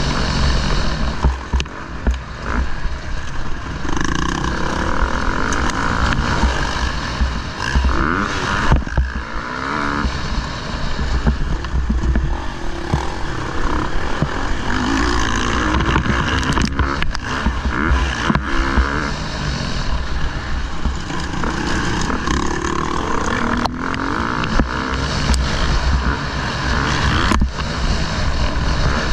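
Motocross bike engine heard from an onboard camera, revving up and falling back again and again as the rider accelerates and shuts off through a race lap. Heavy wind rumble on the microphone, with a few sharp knocks.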